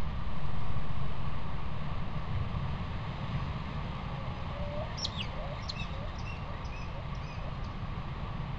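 Steady low rumble and hiss from a trail camera's microphone, with a few faint, short bird-like chirps a little over halfway through.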